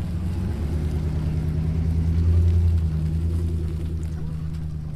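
RAM 1500 pickup's V8 engine running at low, steady revs as the truck tows a caravan slowly past. The low engine note grows loudest about halfway through as the truck goes by, then eases off.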